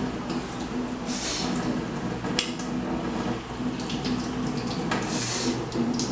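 Kitchen tap running in a steady stream into a stainless-steel sink while a spoon is rinsed under it, with a couple of short clinks about two and a half and five seconds in.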